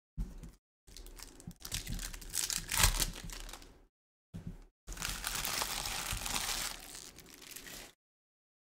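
Topps Chrome trading-card pack wrappers being torn open and crinkled by hand, in several bursts with the loudest crackle about three seconds in. Each burst cuts off sharply, and the sound stops about a second before the end.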